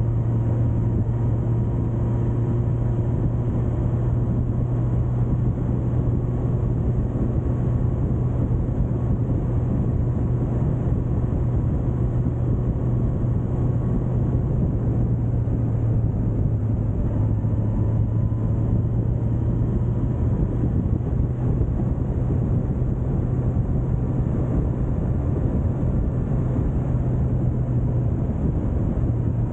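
Suzuki GSX1250FA's inline-four engine running at a steady cruise, its note dipping slightly about halfway through and then coming back up, with wind and road noise from riding along.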